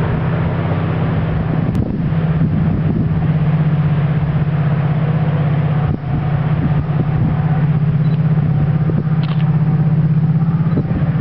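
Irish Rail 071 class diesel locomotive No. 081, with its EMD V12 engine, heard approaching from a distance as a steady low drone.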